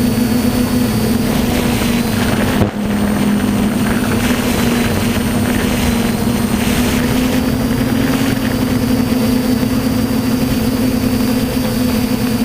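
DJI F450 quadcopter's four brushless motors and propellers running steadily in flight, heard from the GoPro on its frame. There is a steady hum with a thin high whine over it, and wind rushes across the microphone. A brief dropout in the sound comes a little under three seconds in.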